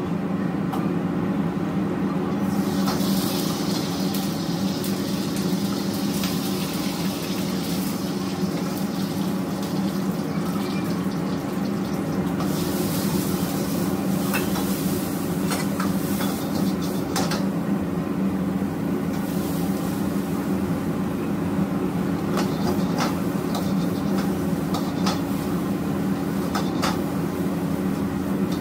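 Commercial wok station running with a steady low hum from its burners and extraction, food sizzling in a hot wok as it is stir-fried, and a metal ladle clinking and scraping against the wok. The sizzling comes and goes, loudest a few seconds in and again around the middle.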